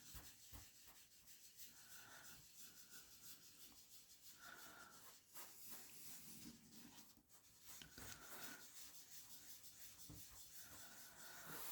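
Faint, soft, irregular rubbing with small ticks: a card's surface being wiped dry after a cleaning spray.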